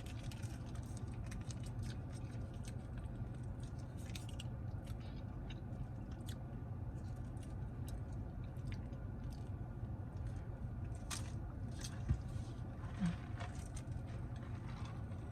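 Close-up chewing and mouth sounds of someone eating a bacon cheeseburger: wet chewing with scattered small crunches and clicks, and one sharper click about twelve seconds in, over a steady low hum.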